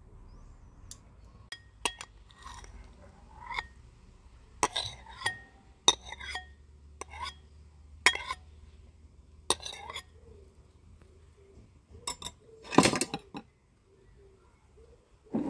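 A kitchen utensil clinking and knocking against a dish in scattered short strikes, a few of them ringing briefly. About three-quarters of the way through comes a longer, louder clatter.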